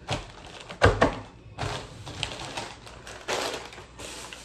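Kitchen handling sounds: a few sharp knocks and taps on the counter in the first second, then crinkling of the plastic wrapper of an Oreo cookie package as it is handled, in two spells.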